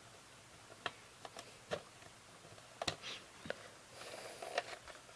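Scattered light plastic clicks and taps from handling a VHS cassette, with a faint rustle between them.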